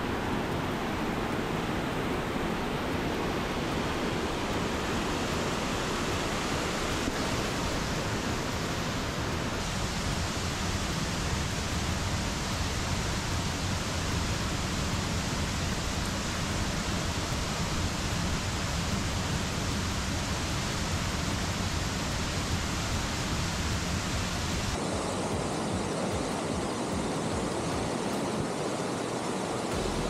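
Steady rush of water from a mountain stream and falls, with no distinct events; its tone shifts abruptly about ten seconds in and again near the end.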